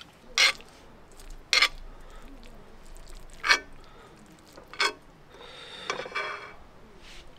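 Spoon clinking against a bowl while eating, four short sharp clinks a second or so apart, with a brief pitched sound about six seconds in.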